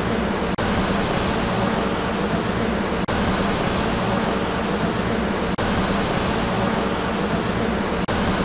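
A steady hum and hiss, like a locomotive engine running, played as a short sound-effect loop that repeats about every two and a half seconds with a brief dropout at each join.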